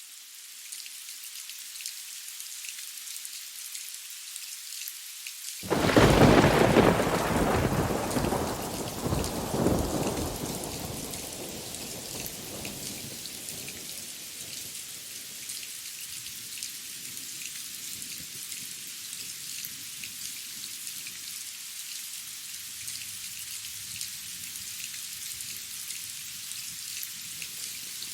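Steady rain falling, with a sudden loud thunderclap about six seconds in that rumbles, swells again a few seconds later, and fades away over several seconds while the rain goes on.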